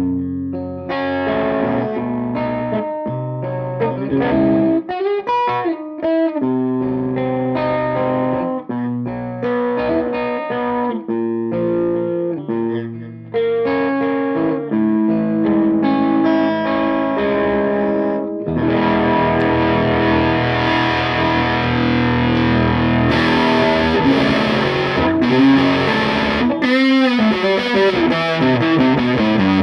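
Electric guitar played through a Tone King Gremlin amp's lead channel at maximum gain, with the guitar's pot rolled down so that picked notes and chords come through with lighter distortion. About 18 seconds in the tone turns abruptly fuller, brighter and more distorted.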